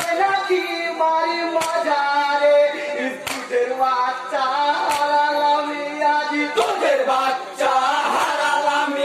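A group of men singing a Bengali marsiya (jari) lament together, a sustained, wavering melody, with a sharp hand clap about every one and a half seconds.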